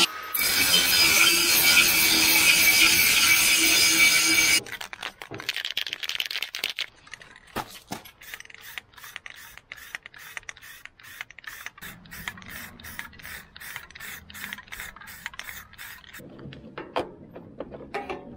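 Angle grinder with a cut-off disc running against the leaf blower's steel handle bar, a loud, steady grinding whine that cuts off sharply about four and a half seconds in. After it, a long run of quiet, evenly spaced clicks follows.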